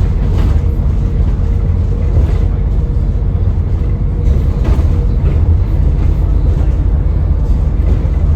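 ADL Enviro400 (E40D) double-decker bus under way: a steady deep engine rumble with a thin steady turbo whine above it. Now and then a short rattle or knock is heard, about half a second in, after about two seconds and near the five-second mark.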